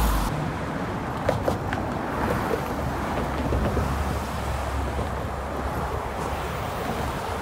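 Wind buffeting the microphone, a low rumble over the steady noise of road traffic driving past alongside.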